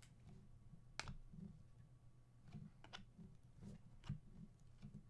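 Faint clicks of glossy Panini Prizm basketball cards being slid off a stack one at a time in the hands, about five light snaps spread over a few seconds, over a low steady room hum.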